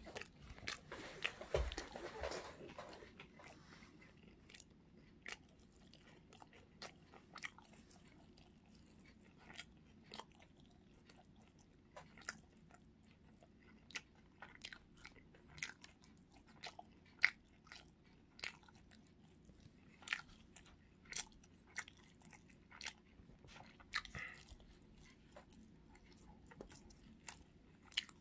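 Someone chewing crisp food close to the microphone: sharp crunches every second or so, with a denser stretch of crunching in the first few seconds.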